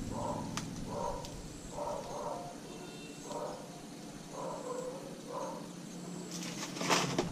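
An animal calling repeatedly in the background, short similar calls about once a second, with a few sharp clicks near the end.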